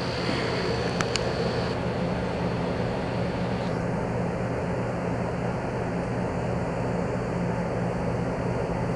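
Steady low mechanical drone with a constant hum, unchanging throughout.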